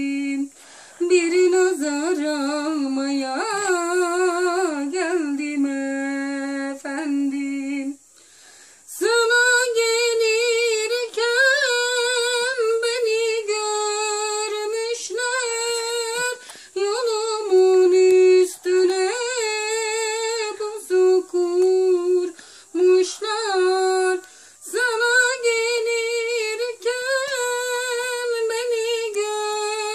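A woman's voice singing solo and unaccompanied: a slow melody of long held notes with ornamented turns. She breaks off briefly about eight seconds in, then goes on at a higher pitch.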